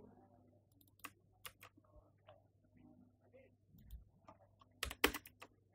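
Computer keyboard keystrokes: a few scattered key presses, then a quick run of louder ones near the end.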